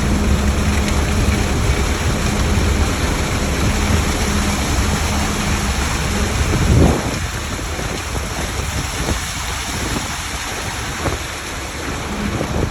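Heavy diesel engine running steadily under a constant rushing noise, typical of a ready-mix concrete truck on a pour. About seven seconds in, after a brief loud swell, the engine's low hum drops away and the rushing noise carries on; the hum comes back faintly near the end.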